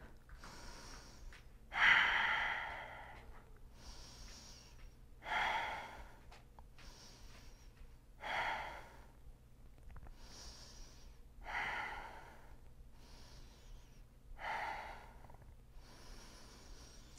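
A man breathing slowly and audibly while holding a yoga shoulder stand: five clear breaths about three seconds apart, the first the loudest, with fainter breaths between.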